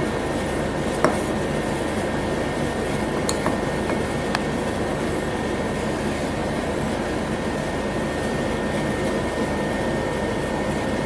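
Steady rushing background noise with three light clicks in the first half, a metal spoon knocking against a glass jar and plastic bowl as rolled oats are spooned into the jar.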